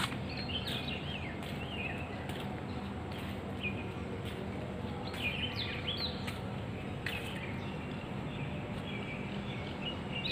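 Small birds chirping on and off in short rising and falling calls, over a steady low background hum, with a few sharp clicks.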